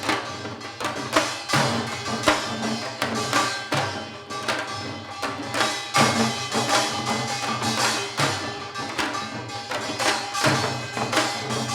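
Janggu, the Korean hourglass drum, played in a fast seoljanggo rhythm: a dense run of sharp stick strikes with deeper strokes sounding underneath.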